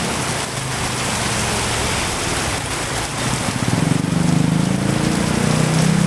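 Heavy rain pouring, a steady dense hiss. About halfway through, a low steady engine drone of a passing vehicle joins in and grows louder.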